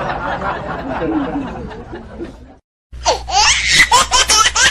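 A mix of music and voices fades out, then after a brief dead silence a burst of rapid, high-pitched laughter starts about three seconds in.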